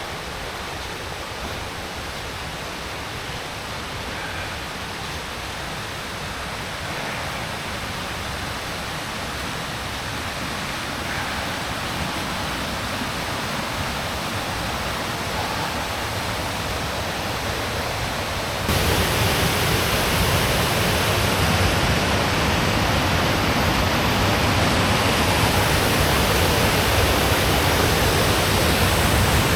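Waterfall in spate, swollen with rain and snowmelt: a steady rush of water that grows slowly louder and jumps up sharply about two-thirds of the way through.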